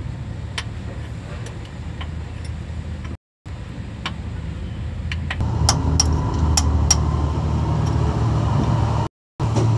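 A steady low engine rumble that grows louder about halfway through, with scattered sharp metallic clicks and knocks from hand tools on the truck's underside. The sound cuts out briefly twice.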